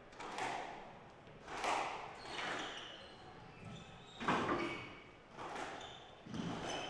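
Squash rally: racket strikes and the ball hitting the court walls, about one every second, echoing in the hall, with short high squeaks of shoes on the wooden floor between them.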